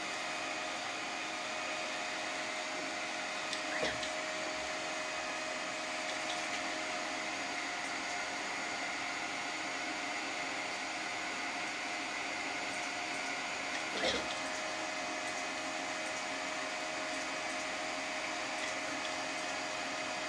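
Multi-colour 3D printer running mid-print, its fans and stepper-driven gantry giving a steady whir with a few faint steady tones. Two short clicks, about four seconds in and again around fourteen seconds.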